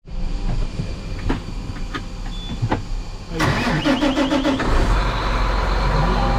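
Tractor engine cranking with a rapid rattle about three and a half seconds in, then catching and running steadily and heavier, after a few sharp clicks earlier on.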